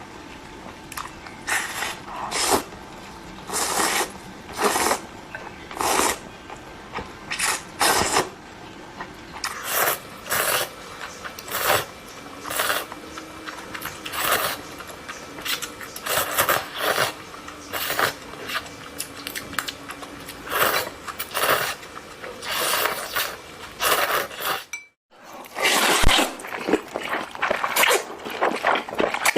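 Close-up sounds of a person eating Korean-style instant noodles: repeated wet slurps and chewing, one every second or so, with a brief break of silence about 25 seconds in.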